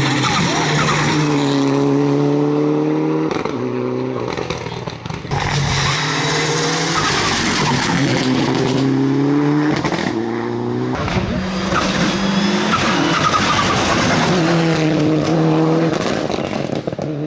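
Hillclimb race car engines running hard. Each engine note holds for a few seconds, then breaks off and picks up again, about five times in all, as the car shifts gear.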